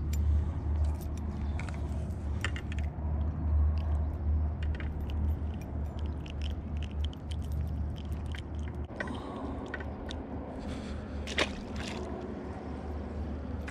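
Small metallic clinks and handling noises as a spinner lure's hooks are worked free from a small trout's mouth, then a single sharp splash about eleven seconds in as the trout is dropped back into the water. A steady low rumble runs underneath.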